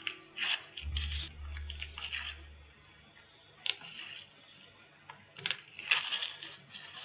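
Dry, papery garlic skins crackling and tearing as a head of garlic is broken apart by hand and its cloves pulled off, in several short bursts. The densest run comes past the middle, with a sharp single crack a little before it.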